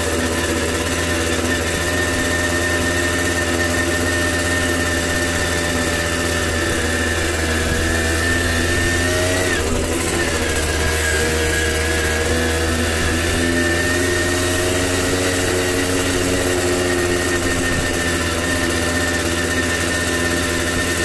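Tomos CTX 80's small two-stroke engine running steadily under way on a dirt track, its pitch shifting briefly about halfway through before settling again.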